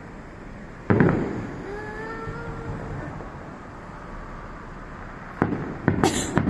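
Fireworks going off: a sharp bang about a second in that fades away, followed by a brief tone. Near the end come several more bangs with a crackle.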